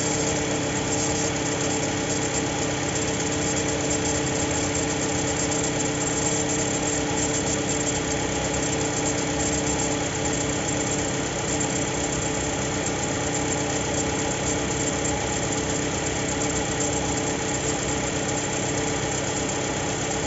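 FAW X80 engine idling steadily with an extraneous noise that the uploader takes for a strange sound from the alternator belt.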